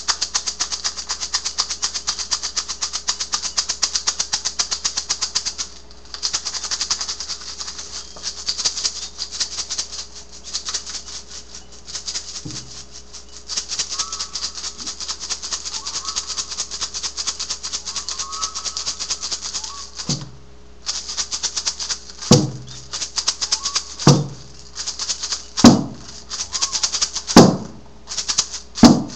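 A hand rattle shaken fast and steadily, with a few short pauses. From about two-thirds of the way in, a hand frame drum is struck slowly, six beats about one and a half to two seconds apart, the drum beats being the loudest sounds while the rattle goes on between them.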